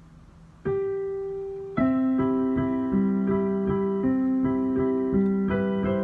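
Piano playing: a single held note about half a second in, then from nearly two seconds in chords with a steady pattern of repeated notes, about two or three a second, over held lower notes.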